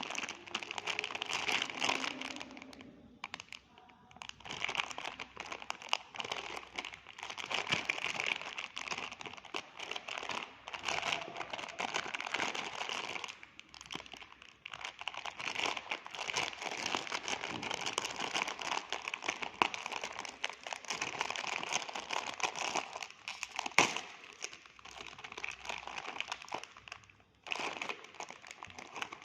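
Cake packaging crinkling and crackling as it is unwrapped and handled, in uneven spells with short lulls. There is one sharp click about two-thirds of the way through.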